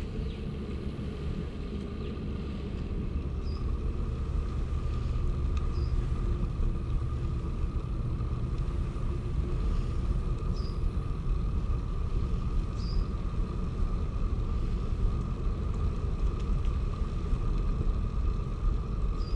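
Steady low rumble of wind on the microphone and tyres rolling during a bicycle ride, with a few short high chirps scattered through it.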